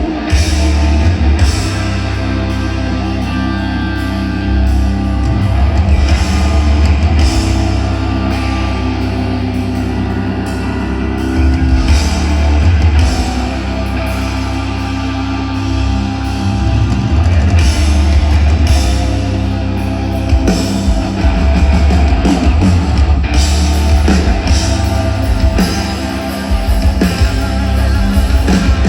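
A live band playing loud rock music through a concert PA system, with drum kit, electric guitar and heavy bass.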